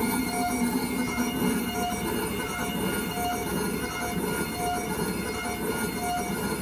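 Cerec MC X dental milling unit milling a tooth crown under a coolant water spray: a steady mechanical whine and hiss. A short tone pulses about every second and a half.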